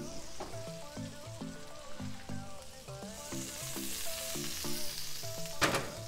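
Pork chops sizzling in melted butter on a hot ceramic-coated griddle top, a steady hiss that grows fuller about halfway through, with a short louder burst near the end. Light background music plays under it.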